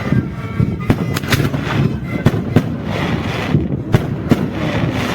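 Fireworks going off in a rapid, irregular string of bangs over a continuous crackling rumble, about a dozen sharp reports in five seconds.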